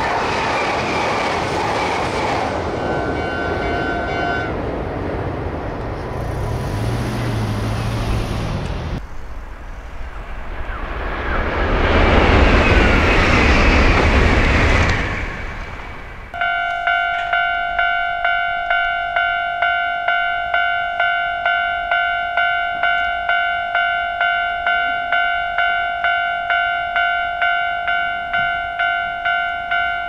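Trains passing Japanese level crossings. At first a train runs past while the crossing bell rings in two tones. After a cut, a Hankyu Kyoto Line train passes loudly. About halfway through, a level-crossing warning bell starts ringing in a steady, even rhythm.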